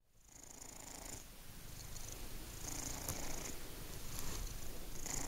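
Domestic cat purring close up while being stroked, a steady rough purr that swells in waves every two to three seconds.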